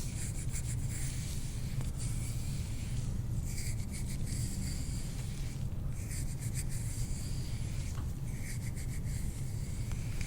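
Hands rubbing and massaging in repeated strokes, each a second or two long with short breaks between, over a steady low hum.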